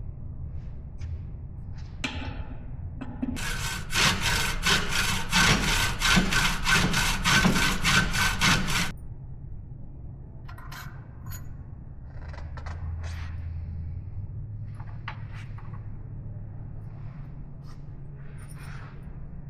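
Hand saw cutting with quick back-and-forth strokes, about three or four a second, for roughly five seconds starting a few seconds in. Light clicks and taps of tools come before and after it.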